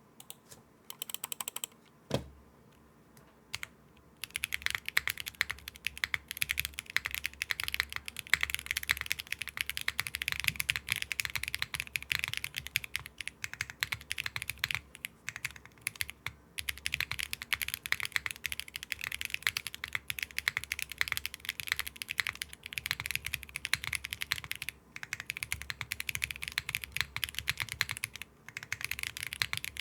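Steady typing on factory-lubed Akko Creamy Yellow Pro V5 linear and Creamy Blue Pro V5 tactile mechanical keyboard switches, spliced back and forth every ten words. The two sound nearly identical. A few keystrokes and one louder knock about two seconds in come before a short pause, and continuous typing starts about four seconds in, with a few brief breaks.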